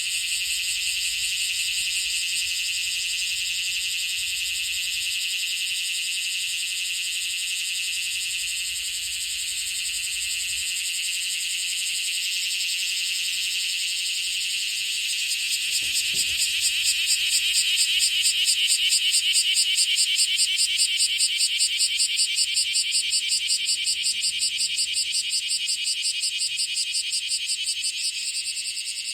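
Bear cicada (Cryptotympana facialis) calling while held in the hand: a loud, high buzz that about halfway through turns into a pulsing call of about four pulses a second, growing louder, then easing off near the end.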